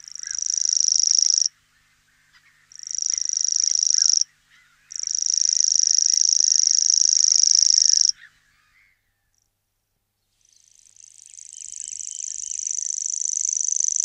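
Grasshopper warbler reeling: a high, unbroken trill in four stretches with short gaps between. The first three stop abruptly, and the last swells in gradually.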